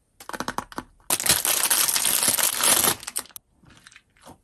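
Fidget toys and their plastic packaging handled close to the microphone for ASMR. A run of quick clicks gives way to about two seconds of loud, dense crinkling, which stops about three seconds in and is followed by a few softer rustles.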